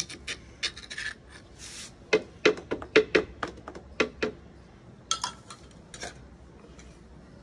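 A metal spoon scraping and knocking against a dauri mortar as it works the ground almond paste, a sound called very satisfying. The scrapes come irregularly, thickest a couple of seconds in and thinning out toward the end.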